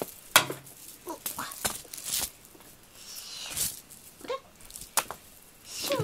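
Scattered taps, clicks and rustles of a cat playing with a ribbon wand toy on carpet, the toy swishing and paws pouncing, with one sharp click about half a second in being the loudest.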